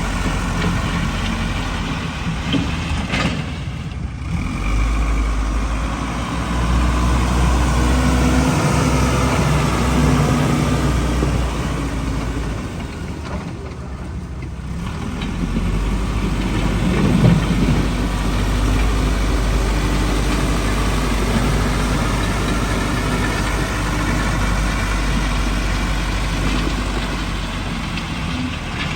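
Backhoe's diesel engine running and revving up and down as it works, with a deep rumble that swells for long stretches and eases off briefly in the middle.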